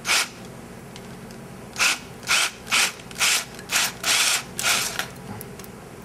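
Hand scraping at the rusted steel end of a VW emergency brake cable's metal conduit, working out leftover rubber from the old cable. There is one scraping stroke at the start, then after a pause a run of about seven short strokes, roughly two a second.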